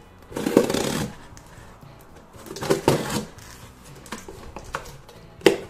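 Cardboard parcel being cut open with a knife: two rasping bursts of about a second each as the blade slits the tape and cardboard, then one sharp snap near the end.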